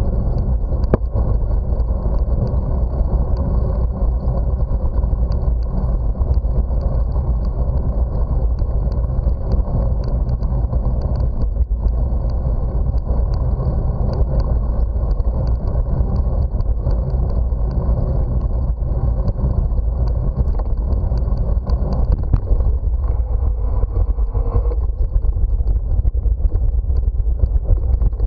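Wind rumbling steadily on the microphone of a camera riding on a moving bicycle, mixed with tyre noise rolling over an asphalt cycle path.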